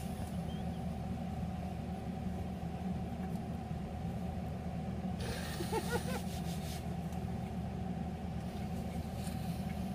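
Steady low hum, like a running fan or air conditioner, under quiet chewing, with a brief stifled vocal sound about six seconds in.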